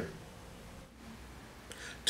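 Quiet room tone in a small room, with a faint soft sound just before the end.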